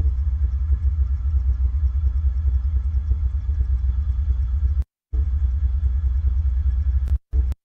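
Low, steady rumble of a distant freight train picked up by a live-stream camera microphone. The audio cuts out completely for a moment about five seconds in and twice more near the end.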